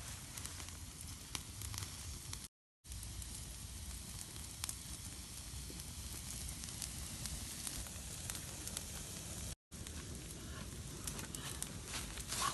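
Open wood fire crackling and hissing, with pieces of pork sizzling on a stick grill above the flames: a steady hiss with scattered sharp crackles. The sound cuts out briefly twice, about two and a half seconds in and again near ten seconds.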